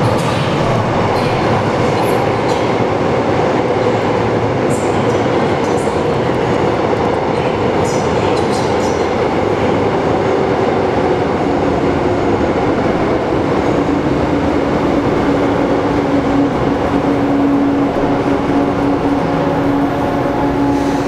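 A Seoul Subway Line 3 GEC chopper-controlled 3000-series electric train pulls into an underground station and runs past along the platform, slowing with a loud, steady rumble of wheels on rail and some clicking over rail joints. About halfway through, a steady low hum from the train joins the rumble and holds as it draws to a stop.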